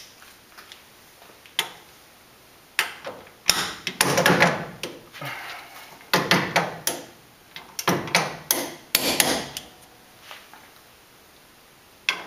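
Torque wrench ratcheting and clicking in several short bursts as brake caliper mounting bolts are tightened to 70 foot-pounds, with knocks of steel tool on metal between them.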